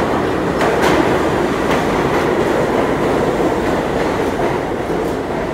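New York City Subway 3 train pulling into an underground station, a steady rumble of cars rolling along the platform with a few wheel clicks over the rail joints.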